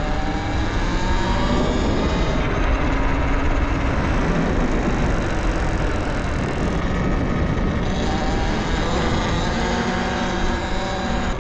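Wind rushing over the camera while riding a Talaria Sting R electric dirt bike, with the bike's motor and drivetrain whine rising in pitch twice as it pulls away.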